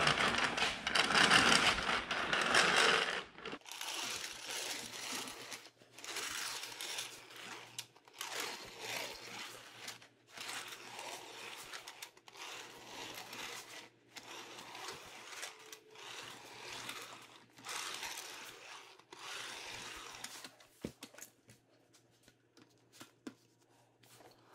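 Roller hemming tool being run along the edge of a metal roofing panel, folding over a 3/4-inch hem: a rolling, scraping sound of sheet metal, loudest for the first few seconds, then repeated passes about every two seconds with short pauses between. A faint steady low hum runs underneath.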